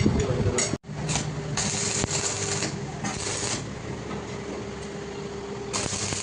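Stick welding arc sizzling in three bursts of about a second each, over a steady hum.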